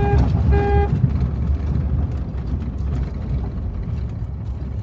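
Two short toots of a car horn in the first second, then the steady low rumble of a vehicle driving on a gravel road.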